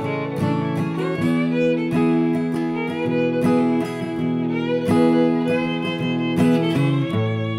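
Improvised fiddle music played over strummed acoustic guitar.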